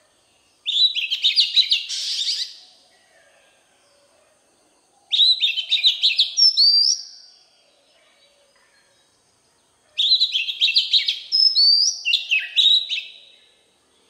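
Oriental magpie-robin singing three phrases a few seconds apart, each a quick run of rapid notes followed by clear whistles sliding up and down in pitch.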